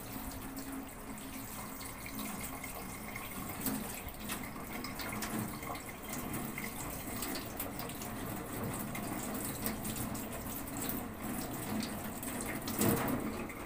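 Kitchen tap running into a stainless steel sink, water splashing as raw squid is rinsed under it by hand; briefly louder near the end.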